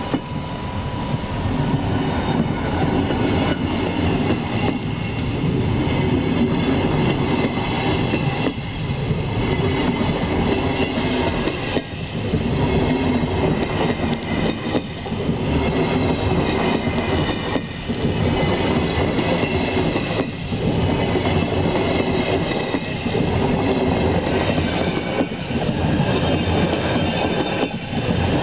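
SBB passenger coaches behind a Re 460 locomotive rolling past, the wheels rumbling and clattering over the track. The noise dips regularly, about every three seconds, as each coach goes by, and a steady high-pitched wheel squeal runs over it on the curving track.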